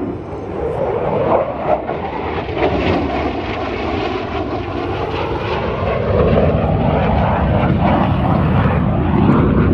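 Jet noise from a Lockheed Martin F-35A Lightning II's F135 turbofan as the fighter passes during an aerobatic display. A tone in the noise drops in pitch partway through, and the sound grows louder from about six seconds in.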